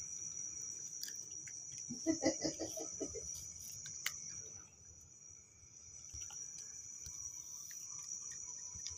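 Crickets trilling in a steady high tone, with faint low clicks of a cat chewing dry kibble and a brief voice about two seconds in.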